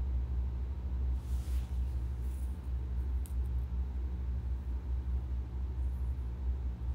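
Steady low rumble, with a brief hiss about a second in and a short click around three seconds in.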